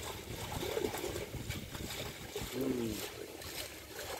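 Outdoor ambience beside water: steady wind rumble on the microphone with a light trickle of water.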